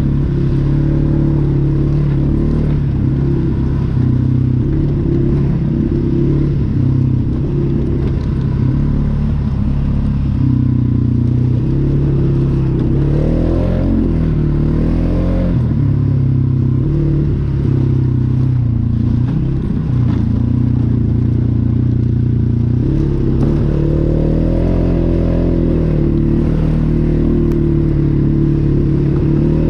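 Polaris Sportsman 570 ATV's single-cylinder engine running while riding, its pitch rising and falling a couple of times as the throttle is opened and eased off.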